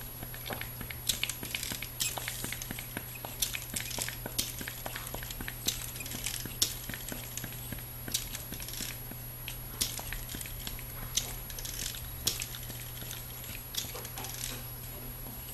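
A pneumatic LEGO Technic frog toy working: irregular plastic clicks and taps from its legs and pneumatic parts on a wooden floor, roughly one or two a second, some followed by a short hiss of air.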